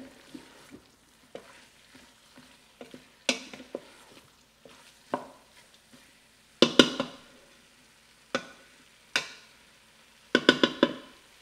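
Wooden spatula stirring and scraping flour-coated chicken and vegetables in a stainless steel pot, knocking against the metal every second or two, sometimes in quick runs of several knocks. A faint sizzle of the food frying on high runs underneath.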